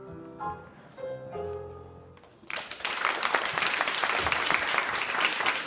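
Piano music plays its last few notes and stops, then applause and clapping break out about halfway through and continue.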